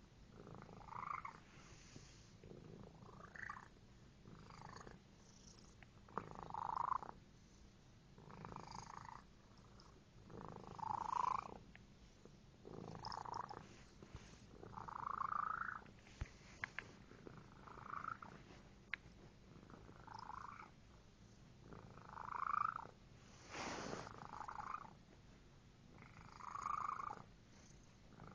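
A pet cat purring steadily, breaking into a short pitched call about every two seconds, over a dozen times in a row.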